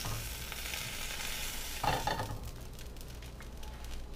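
Grilled flatbread sandwich sizzling in an oiled frying pan; the sizzle dies down about two seconds in as it is lifted out, with a couple of sharp knocks then.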